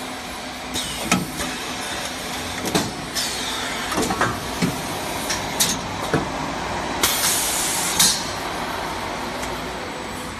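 PE film shrink wrapping machine running: a steady mechanical hum with repeated sharp clacks from the packing mechanism and short hisses of compressed air from its pneumatic cylinders, the longest about a second long some seven seconds in.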